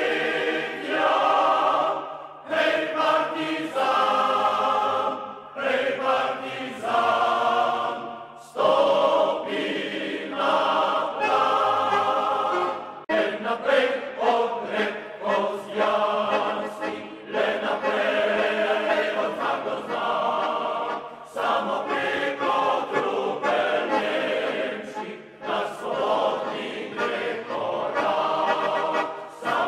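Background music: a choir singing, in phrases a few seconds long with brief pauses between them.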